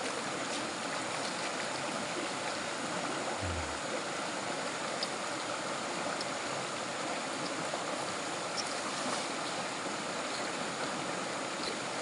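Steady rush of a rocky hill stream's running water, with one brief low thump about three and a half seconds in.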